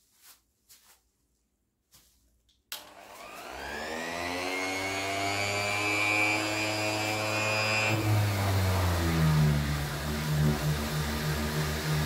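Bosch PEX 300 AE random orbital sander switched on at speed setting 3 about three seconds in: its motor spins up with a rising whine, then runs steadily. About eight seconds in the pad goes onto the gloss-painted door and the sound turns rougher, with a pulsing hum as it sands.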